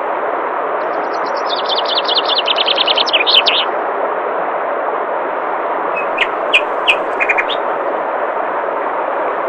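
Steady rush of flowing water, with a songbird singing a rapid trill of repeated notes, then a few short chirps.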